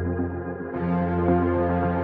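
Background ambient electronic music: sustained synthesizer chords over a steady low drone, growing fuller and brighter a little under a second in.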